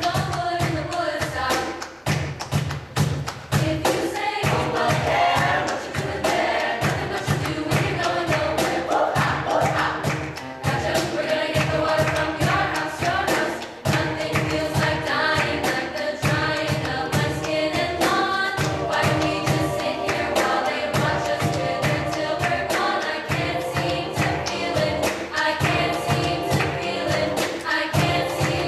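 A choir singing, with a steady low thumping beat underneath.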